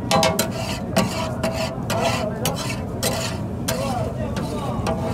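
A flat metal spatula scraping and stirring on a large oiled griddle in repeated, irregular strokes, over the sizzle of pieces of bull liver frying in the oil.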